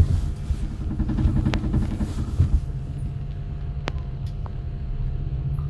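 Lift car travelling between floors, heard from inside the car: a steady low hum and rumble, rougher in the first couple of seconds, with two sharp clicks.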